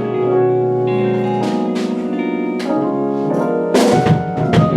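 A live band playing: held keyboard chords that change every second or so, with drum and cymbal hits, and a quick cluster of drum hits near the end.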